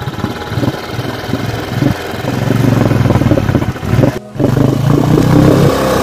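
Royal Enfield Bullet 350's single-cylinder engine revving while the bike is stuck in mud and water, its rear wheel spinning and churning the water. The revs grow louder about two seconds in, with a brief break in the sound just after four seconds.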